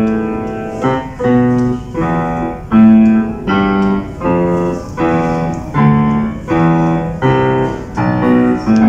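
Grand piano playing a steady run of chords, a new chord struck about every three-quarters of a second and each ringing on until the next.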